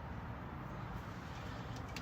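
Steady low background noise in a lull between hammer taps, with a faint tick near the end.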